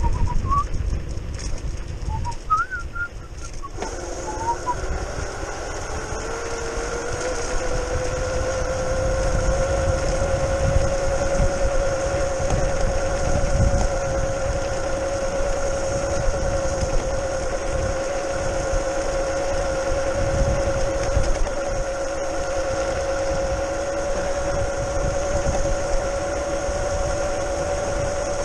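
Modified electric scooter's brushless outrunner motor whining under VESC control, with a wind rumble on the microphone. The whine comes back about four seconds in, rises in pitch as the scooter picks up speed, then holds steady at cruising speed. A few short high chirps come in the first few seconds.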